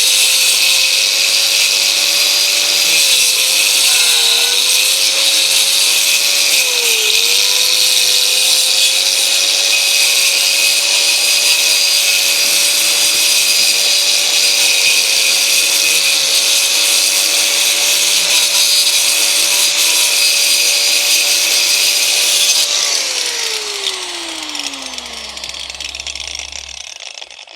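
YKing electric angle grinder running with a blade fitted: a loud, steady high whine whose pitch dips briefly a few times in the first seven seconds. About 23 seconds in it is switched off and the pitch falls as it spins down.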